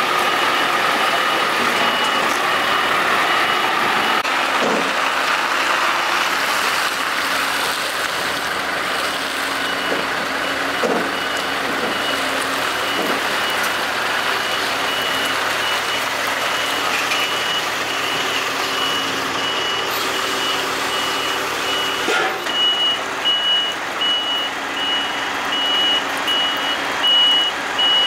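Truck reversing alarm beeping steadily at a high pitch, growing louder about two-thirds of the way in, as a Scania R650 heavy tractor backs up. Its V8 diesel engine runs at low revs underneath.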